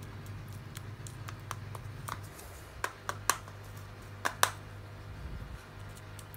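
Light clicks and scrapes of a small plastic scoop working gritty pumice-and-leaf-mould potting mix in a plastic pot, the sharpest ticks coming in a cluster about three to four and a half seconds in, over a steady low hum.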